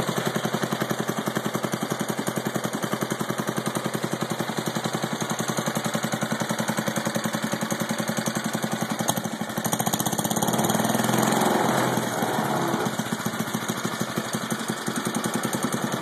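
Clinton 494 small cast-iron engine running steadily at an even idle, freshly rebuilt with new rings and a rebuilt carburetor, and running well. It grows briefly louder about ten seconds in, then settles back.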